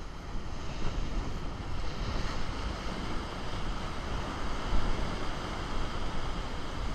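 Ocean surf washing and breaking against a rock ledge, surging louder at times, with wind buffeting the microphone.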